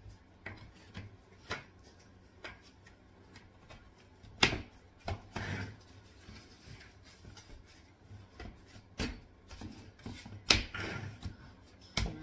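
Frame poles and connectors of a mini greenhouse being handled and fitted together: scattered light clicks and rubbing, with two louder knocks, about four and a half and ten and a half seconds in.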